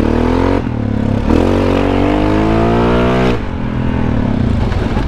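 2021 Honda Rubicon ATV's single-cylinder engine through a new RJWC aftermarket exhaust, accelerating under throttle. The engine note rises, dips briefly under a second in as the automatic shifts up, and climbs again. It falls off throttle a little after three seconds in and runs on at a lower note.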